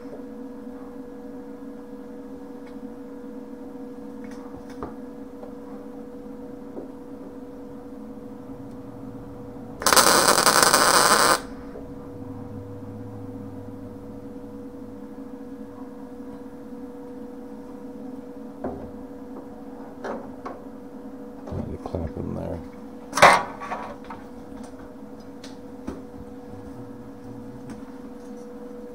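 A steady electrical hum, broken about ten seconds in by one burst of MIG arc crackle lasting about a second and a half: a tack weld being laid on a steel patch panel. A few clicks and knocks follow near the end, one sharper than the rest.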